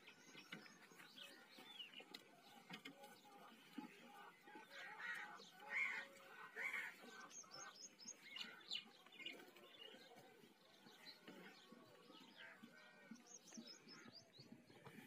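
Faint chirping of many small birds, with a few louder chirps about five to seven seconds in.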